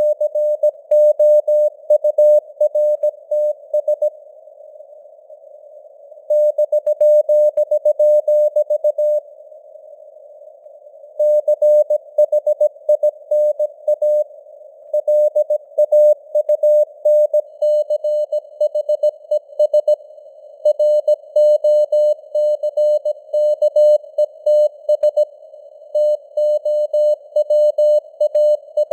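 Morse code (CW) sent at 17 words per minute: a single mid-pitched tone keyed on and off in dots and dashes, over a faint hiss of simulated radio noise. The keying stops twice for about two seconds, between words or headlines.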